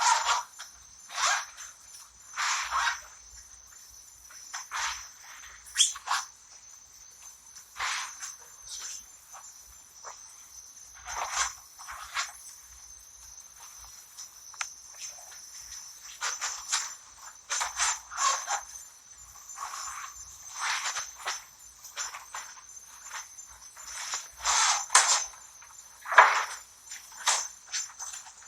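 Irregular rustling and handling noises, every second or two, from belongings being moved. Behind them, a steady high chirring of insects.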